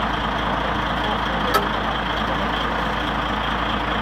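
A flatbed crane truck's engine running steadily, with a single short click about one and a half seconds in.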